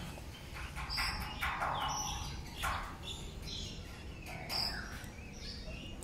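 Several birds chirping and calling, short calls overlapping in quick succession, some of them high whistled notes.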